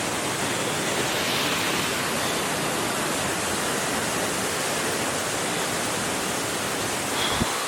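Steady rushing water, an even hiss that does not let up, with a brief low thump near the end.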